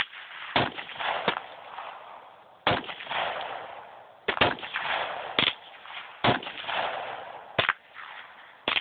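AR-15 semi-automatic rifle fired in single shots, about nine at uneven intervals roughly one to one and a half seconds apart, each followed by an echoing tail.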